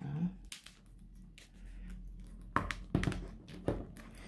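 Handling noise: a handful of clicks and knocks as a rhinestone-covered figure is turned and set down on a table, with a brief rising hum at the start.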